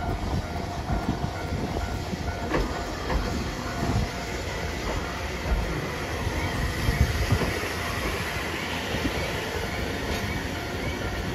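Hiroden 3700-series articulated tram passing close by: a steady rumble of wheels on the rails, with a single sharp knock about two and a half seconds in.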